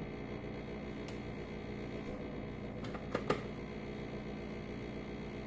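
Steady hum in the background, with a few light ticks and two sharp clacks in quick succession about three seconds in, from a measuring cup of flour being scooped and handled at the counter.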